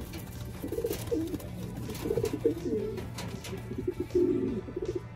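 Domestic racing pigeons cooing: repeated low, warbling coos that rise and fall in pitch throughout.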